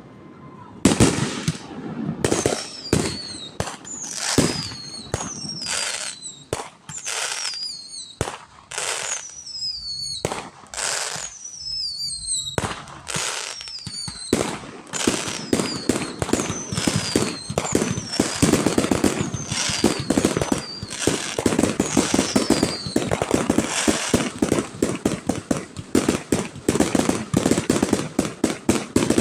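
Aerial fireworks display: a run of shell bursts, with whistles that fall in pitch between the bangs in the first half. From about halfway on, a dense, rapid barrage of bangs and crackles.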